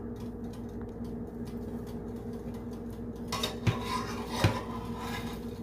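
Metal spatula scraping across a nonstick frying pan as it slides under a grilled sandwich to lift it out, starting a little over three seconds in, with two sharp clicks of the spatula against the pan, over a low steady hum.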